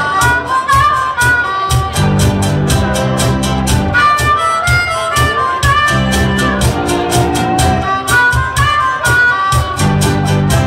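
Live band music with a harmonica leading the melody over electric guitars and a steady beat.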